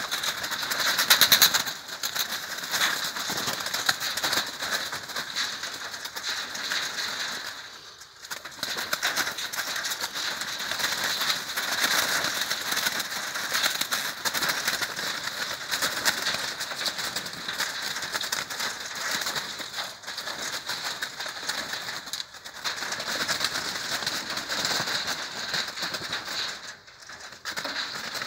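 Several Eurasian magpies chattering almost without pause, a dense rapid rattling of calls from many birds at once, with brief lulls about 8, 22 and 27 seconds in.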